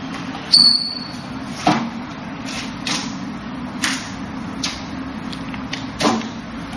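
Wing Chun wooden dummy being struck and blocked by hands and forearms: a string of about nine irregular wooden knocks and slaps against its arms and trunk. The sharpest knock, about half a second in, is followed by a brief high ring.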